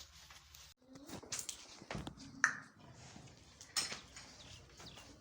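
Cattle moving about: scattered knocks and clinks, with short low animal sounds about a second in and again near the middle.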